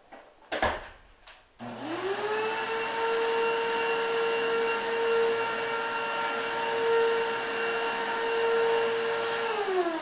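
A knock, then a bagless upright vacuum cleaner is switched on: its motor spins up to a steady whine and runs as it is pushed over carpet, then is switched off near the end and winds down, its pitch falling.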